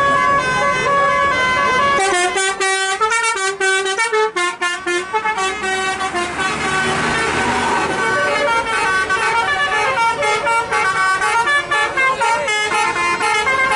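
Bus 'telolet basuri' musical air horn playing a tune: several horn tones sound together and step from note to note, with a run of short choppy notes a few seconds in.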